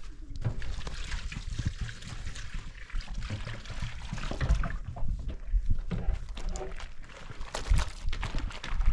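Water splashing and trickling, with irregular knocks and low thumps.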